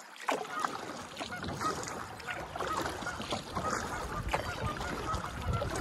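Kayak paddling: the paddle dipping and water splashing and dripping along the hull, over wind on the microphone, with birds calling throughout.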